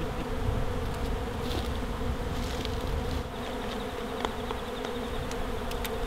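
A swarm of honey bees buzzing in a steady, unbroken hum as they fly around and cluster on a swarm box, many bees in flight at once.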